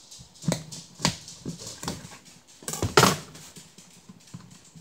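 Dog making a few short, sharp vocal sounds, the loudest about three seconds in.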